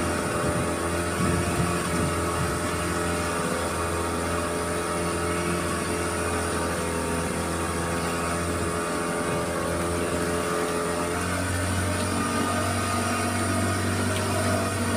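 Small boat's outboard motor running steadily as the boat travels at speed. Its note shifts slightly about eleven seconds in.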